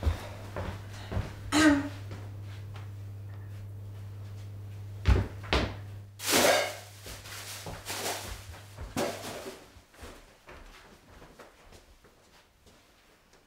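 Kitchen handling sounds: a few knocks, a loud thud about five seconds in, then rustling as a kitchen bin and its black plastic bin bag are handled. A low steady hum runs underneath and stops about ten seconds in.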